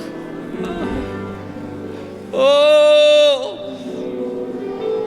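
Soft sustained worship music, and about two seconds in a single shofar blast: one loud, steady note held for about a second, bending up at the start and dropping off at the end.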